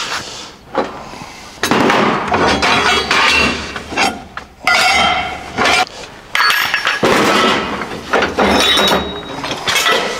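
A power tool working the steel of a truck frame rail, in three loud bursts of about two seconds each that start and stop sharply.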